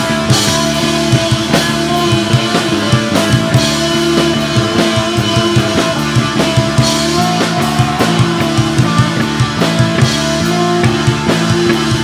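A live rock band playing: a drum kit beating out a steady rhythm of bass drum and snare hits under electric and acoustic guitars.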